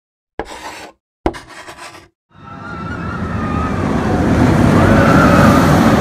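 Two short sharp hits, then a rushing rumble with a wavering whine that swells steadily, as of a roller coaster train racing along its track; an intro sound effect.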